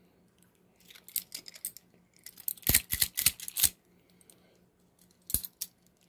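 Hiatt-Peerless handcuff being handled, its metal swivel links and bracelet clinking and clicking: two quick flurries of clicks in the first two-thirds, then one more brief click about five seconds in.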